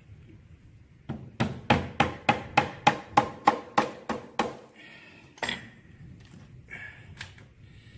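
Hammer striking metal: a fast run of over a dozen ringing blows, about four a second, then two single blows a second or two apart.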